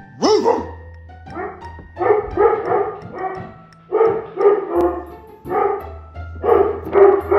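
A dog barking repeatedly in short runs of several barks, over background music.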